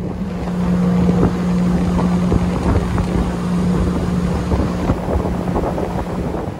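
An engine running steadily with a constant drone, with wind buffeting and crackling on the microphone.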